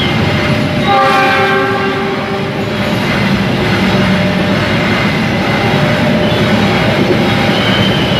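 Diesel-hauled passenger train passing close by: the locomotive's horn sounds about a second in for nearly two seconds, several tones at once. Then the coaches roll past with a steady rumble of wheels on the rails.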